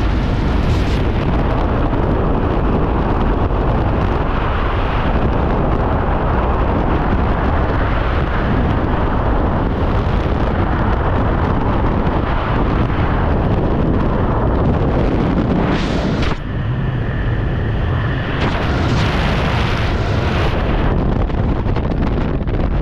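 Freefall wind rushing loudly and steadily over a helmet-mounted camera's microphone during a skydive. About sixteen seconds in the noise dips briefly and changes as the parachute opens, and wind noise carries on under the open canopy.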